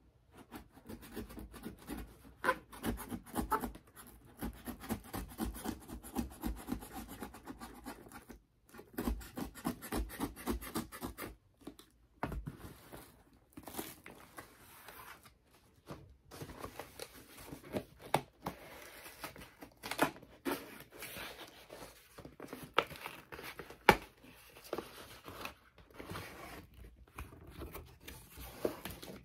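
Scissors snipping and scraping through packing tape on a cardboard box, with tape tearing and cardboard rubbing. It comes as irregular scrapes and a few sharp clicks with short pauses, and cardboard flaps are pulled open near the end.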